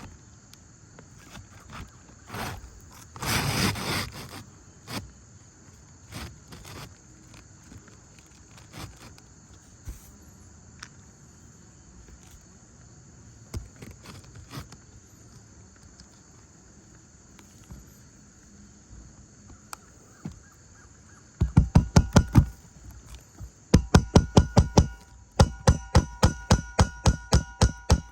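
Roofing nails being hammered into a new asphalt shingle: quick runs of sharp, evenly spaced blows, about four to six a second, some ringing, starting about three-quarters of the way in. Before that, only scattered faint knocks and a brief rustle as the shingle is handled.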